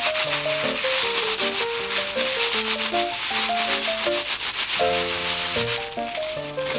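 A plastic bag crinkling and dry seasoned laver (gim) crackling as hands rub and crush the sheets inside it into flakes, with a brief let-up near the end. A simple melody plays underneath.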